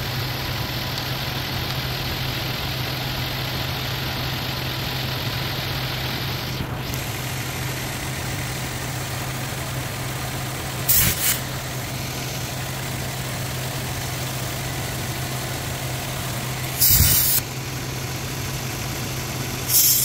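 Car engine idling steadily, with short sharp hisses of refrigerant as the A/C charging hose at the manifold gauges is purged of air: three brief hisses, about halfway through, near the end and at the very end. A fainter steady high hiss stops about a third of the way in.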